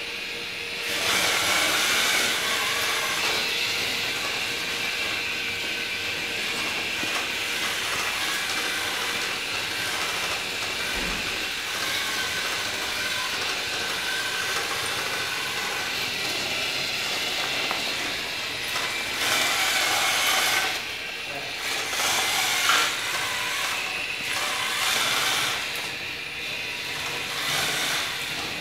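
Traxster II tracked robot's drive motors and tracks running on a hard floor: a steady, noisy mechanical running sound, with a few brief dips in level near the end.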